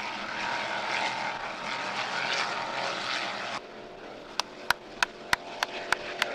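Offshore racing powerboat engines running at speed, heard as a loud steady drone mixed with rushing noise. About three and a half seconds in the sound cuts off abruptly, leaving a quieter drone with a sharp click about three times a second.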